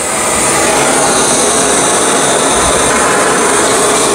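BRS-3000T titanium canister gas stove burning at a strong flame, a steady, even rushing hiss of the gas jet under a titanium cup of water that is close to the boil.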